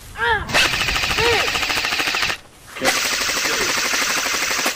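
Rapid automatic gunfire in two long strings, broken by a pause of about half a second in the middle.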